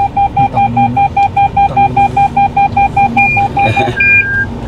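A car's electronic warning beeper going fast, about six or seven short beeps a second, with a higher chime pulsing more slowly alongside it. The fast beeping stops near the end and only the slower chime carries on.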